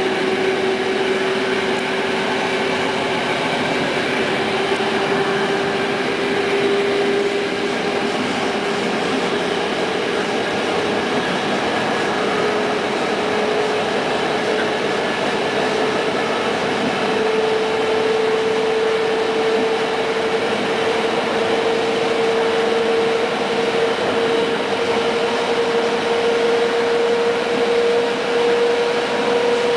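Moving passenger train heard from inside a coach: a steady running noise with a whine that slowly rises in pitch.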